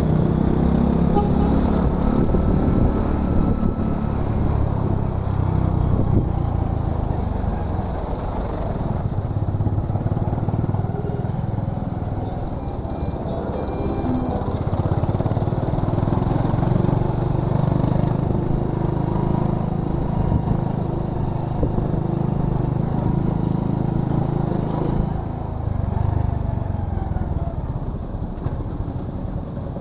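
Honda Win 100's single-cylinder four-stroke engine running as the motorcycle is ridden, its note swelling and easing as the throttle changes, over a steady high hiss.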